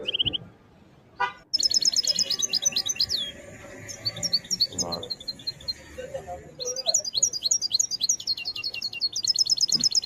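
Caged goldfinch singing in fast runs of high, rapid chirps and trills, in several phrases with short pauses between them. The reviewer judges the song to be of the 'wadania' type, not 'mrada' as the seller claims.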